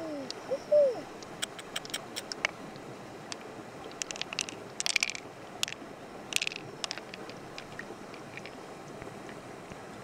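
Scattered sharp clicks and crunchy crackles of freshwater mussel shells being handled and cracked open, bunched most thickly about five and six and a half seconds in, over a steady hiss of river water.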